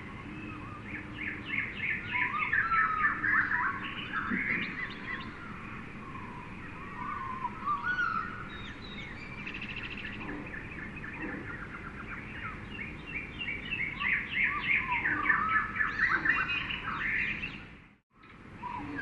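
A jungle bird chorus: many birds chirping and trilling over each other above a steady background hiss, busiest in two spells. The sound drops out to silence for a moment near the end.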